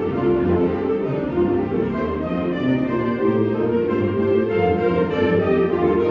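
High school concert band playing, woodwinds and brass sounding together in held chords.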